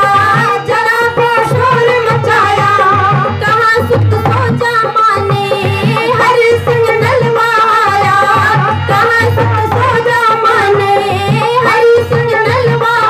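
A woman singing a Hindi patriotic bhajan with musical accompaniment and a steady drum beat.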